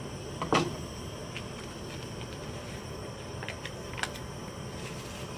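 Seasoning packet being slit open with a knife and handled: a sharp crinkle about half a second in, then a few light clicks and taps near four seconds, over a steady background hiss.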